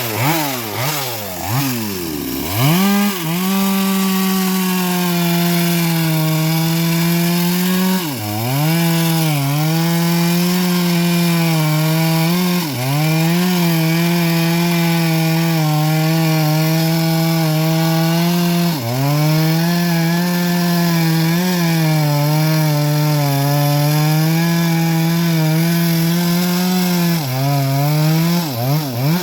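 Small high-revving two-stroke engine running a homemade bandsaw through an old teak log, held at high revs under load. Its pitch sags briefly a few times as the cut loads it and picks back up. The engine revs down and back up about two seconds in, and the revs pulse rapidly near the end.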